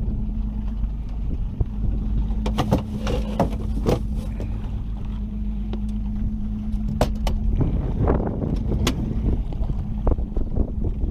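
Wind rumbling on the microphone aboard a small fishing boat, with a steady hum that stops about three-quarters of the way through and a scattering of sharp clicks and knocks.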